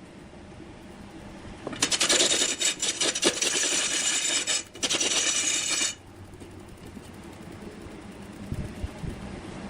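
A tool scraping and cutting wood with a loud rasp lasting about four seconds, broken once briefly, over a quieter steady background of machinery.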